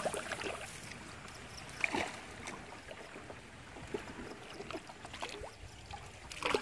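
Small wooden boat being poled with a bamboo pole through shallow water thick with water lilies and grass: water splashing and trickling, with irregular splashes and knocks every second or two.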